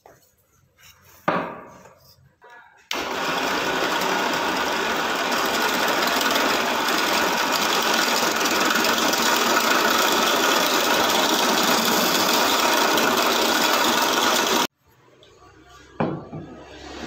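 Corded electric drill, mounted in a drill stand, running steadily and spinning a sanding drum while a curved wooden table leg is pressed against it, a constant motor whine under the hiss of sanding. It starts a few seconds in and cuts off abruptly; a wooden knock comes near the end.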